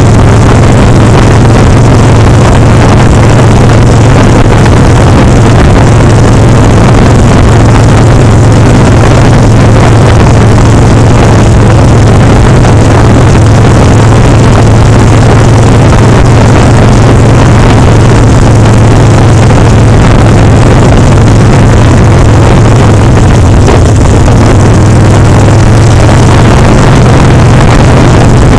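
Harley-Davidson Sportster Seventy-Two's air-cooled V-twin running at a steady cruise, its loud exhaust mixed with heavy wind noise on the microphone. The engine note holds a steady low pitch.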